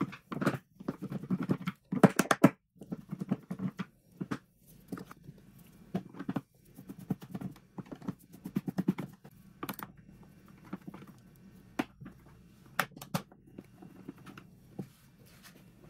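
Small screwdriver working screws out of a jump starter's plastic back housing: irregular clicks, scrapes and taps of metal on plastic, with handling knocks.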